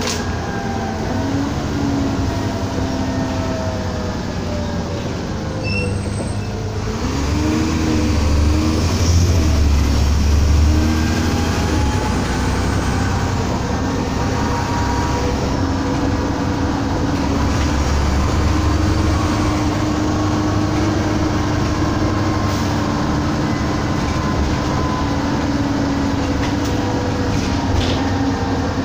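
Lower-deck interior sound of an Alexander ALX400 double-decker bus under way: engine and drivetrain running over steady road noise, their whine rising and falling in pitch, loudest about eight to eleven seconds in.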